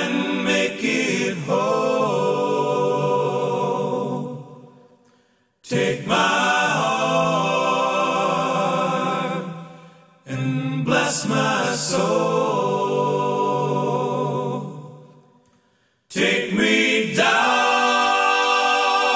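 Background music: unaccompanied voices singing in harmony, in four long phrases that each swell and then fade out, with short silent breaks between them.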